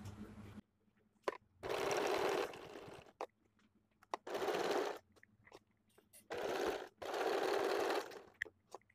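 Electric sewing machine stitching a zipper into a seam in four short runs of about a second each, with small clicks of handling between them.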